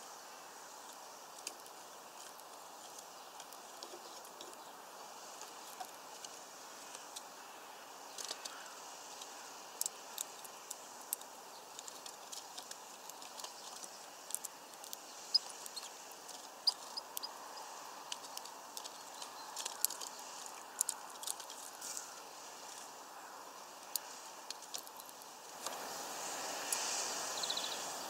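Small birds pecking at seed in a feeder: scattered sharp taps and clicks of beaks on the seed and the feeder, thickest through the middle, over a steady background hiss. Near the end a louder, steadier background noise swells up.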